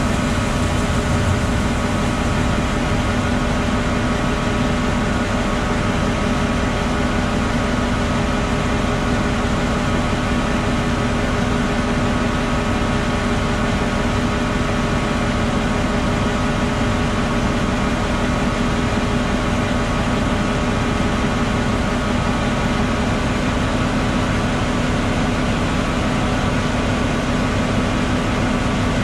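John Deere 9520RX tractor engine running at a steady speed: a constant drone with an unchanging hum.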